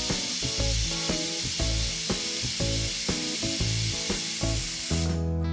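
Pressure cooker venting steam from its weight valve with a loud, steady hiss, which cuts off abruptly about five seconds in. This is the cooker's whistle releasing pressure. Plucked background music plays underneath.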